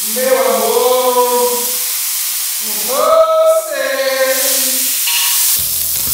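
A voice singing long drawn-out notes with no accompaniment, over the steady sizzle of chicken frying in a hot wok. A clatter of stirring joins near the end.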